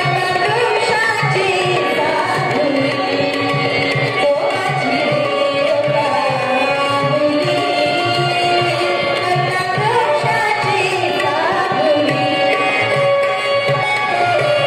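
Music: a steady held drone under a melody that slides between notes, over a regular low drum beat.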